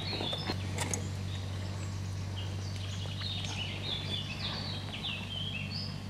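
A songbird singing a string of short, quick chirping notes, thickest in the second half, over a steady low hum and a couple of faint clicks near the start.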